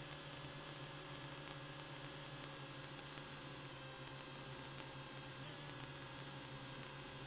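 WLToys V686G quadcopter in flight, heard through its onboard camera: a steady low hum with fainter steady tones above it and a light hiss.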